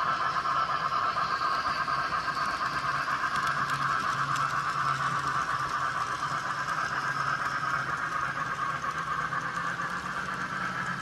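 N-scale model trains running on the layout track, a steady whir of small wheels and motors with a faint low hum underneath.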